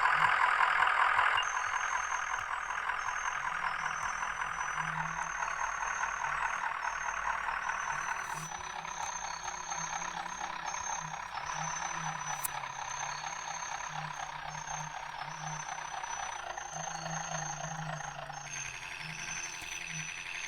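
MAZ-105 articulated city bus under way, heard from inside: steady engine and road noise, louder for the first second or so, with a thin high whistle that comes and goes.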